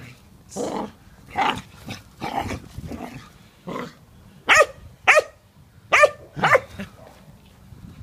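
Cocker spaniel puppy at play: short, rough noises through the first half, then four sharp yapping barks in quick pairs in the second half.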